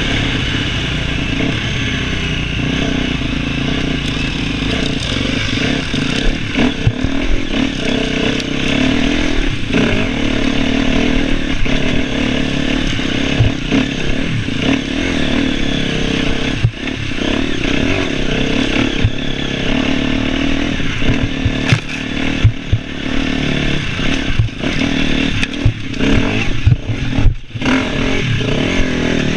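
KTM enduro motorcycle with an FMF exhaust running hard off-road, its engine note rising and falling with the throttle. Frequent sharp knocks and clatter, louder from a few seconds in, come from the bike going over rough ground.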